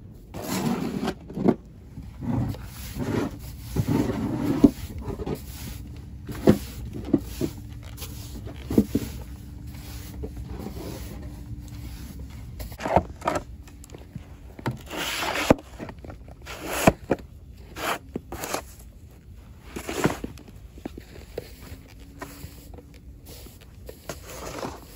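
Plastic snow shovel scraping and pushing snow across paving stones in repeated short, irregular strokes.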